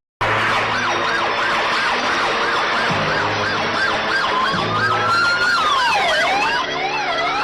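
Several emergency vehicle sirens sounding at once, as a film sound effect. A fast warbling siren runs throughout, a slower wailing siren rises and falls about four seconds in, and a quick yelping siren joins near the end.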